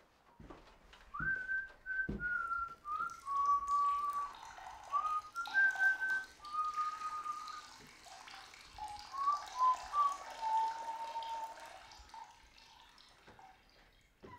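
A person whistling a slow tune: a single line of held notes stepping up and down, starting about a second in and stopping about eleven seconds in, over a faint hiss.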